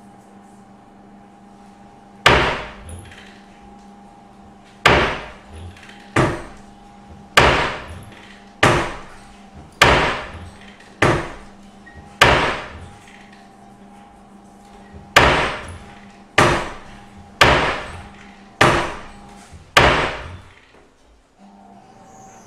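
A wooden door with glass panes slamming shut over and over: about a dozen loud bangs roughly a second apart, with a short pause midway. A faint steady hum runs underneath.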